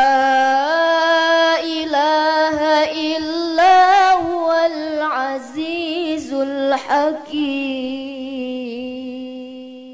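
A single voice chanting Quran recitation in a melodic, ornamented style, the pitch wavering and gliding. It closes the verse on a long held note that slowly fades away near the end.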